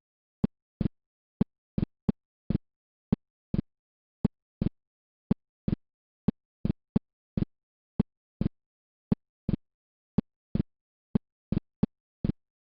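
Recorded heart sounds heard through a stethoscope: short, low lub-dub thuds, about one beat a second, with now and then a third short sound in a beat. The gaps between the thuds are silent, with no murmur heard.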